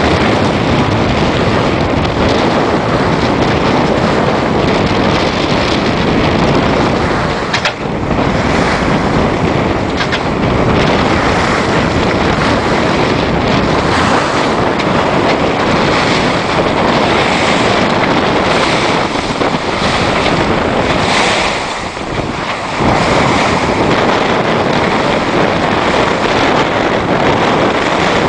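Strong wind buffeting the microphone over the rush of waves and spray along a small sailboat's hull as it sails through choppy water. The noise is loud and steady, easing briefly twice.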